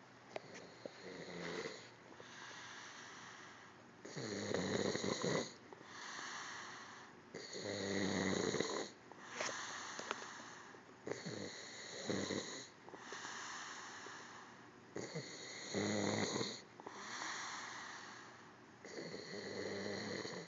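A sleeping person snoring in slow, regular breaths: about five louder snores, each followed by a softer breath, roughly every three to four seconds.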